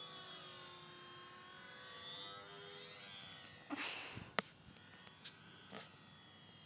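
R/C Champ plane's motor and propeller droning overhead, its pitch sliding slowly down and then back up as the plane passes and fading after about four seconds. A short rustle and a sharp click come about four seconds in.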